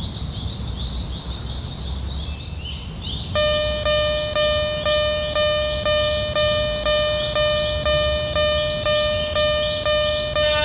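Japanese level-crossing warning bell ringing its 'kan-kan' about twice a second, starting about a third of the way in. Before it, and faintly on top of it, comes a fast run of high rising chirps.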